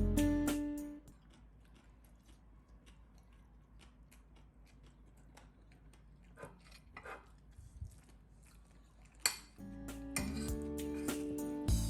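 Faint, scattered clinks and clicks of kitchen utensils against dishes, with one sharper click about nine seconds in. Background music fades out at the start and returns near the end.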